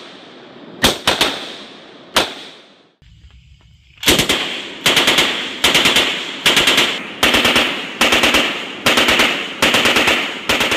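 Gunfire: two single shots, then after a short pause a belt-fed machine gun firing short automatic bursts, one after another, each shot ringing out.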